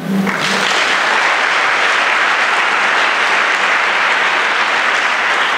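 Congregation applauding, a steady, even clapping that sets in just after the start.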